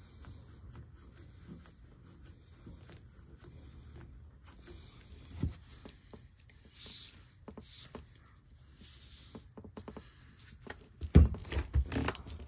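Hands working with tools and metal fittings: light scraping and clicking, a single knock about five and a half seconds in, then a burst of louder knocks and clatter near the end.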